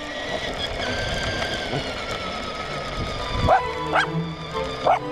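Stock electric motor of a Traxxas LaTrax Prerunner RC truck whining as it drives over gravelly asphalt, its pitch slowly falling, with tyre noise. A dog barks three times in the last second and a half.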